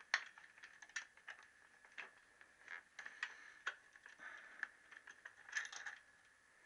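Irregular metallic clicks and taps of a spanner working the nuts on a motorcycle's head steady, a few to a second, over a faint steady high whine.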